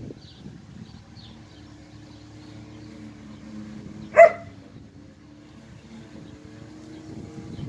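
A German shepherd gives a single short bark about four seconds in, over a low steady hum and a few faint bird chirps.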